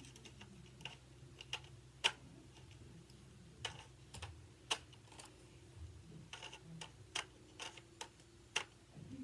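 Faint, sharp clicks and taps from handling a toy sniper rifle's parts, about ten spread irregularly, the loudest about two seconds in and near the end, over a faint steady hum.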